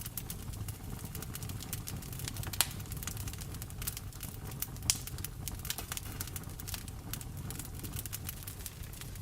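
Wood fire crackling in a fireplace: dense small snaps, with two louder pops a little under three and about five seconds in, over a low steady rumble.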